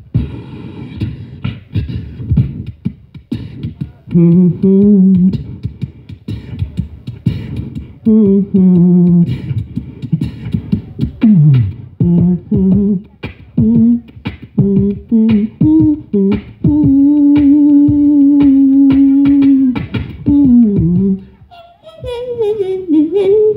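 A man beatboxing: rapid mouth-made drum clicks and snares mixed with hummed and sung vocal notes, some sliding up and down. About two-thirds of the way through comes one long held note.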